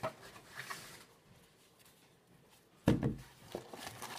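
Cardboard shipping box being handled on a table: a light click and faint rustling, then one dull thump a little under three seconds in as the box is knocked against the table.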